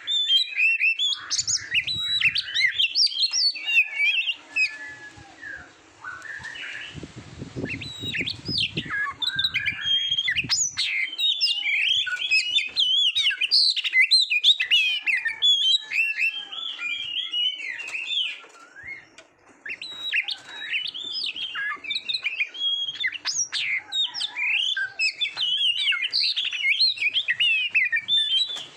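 Oriental magpie-robin (kacer) singing a fast, varied run of whistles, chirps and chattered phrases, with brief lulls about six and nineteen seconds in.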